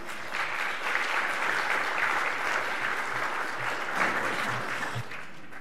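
Audience applauding, a burst of clapping that dies away about five seconds in.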